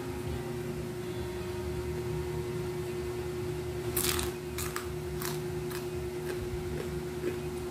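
Crispy fried crab crunching and crackling as it is broken and eaten by hand: a sharp crunch about four seconds in, then a few shorter crackles over the next two seconds, over a steady hum.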